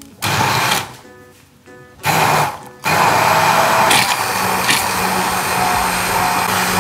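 Hand-held immersion blender puréeing blanched parsley with oil in a plastic jug. It runs in two short pulses, then runs continuously from about three seconds in.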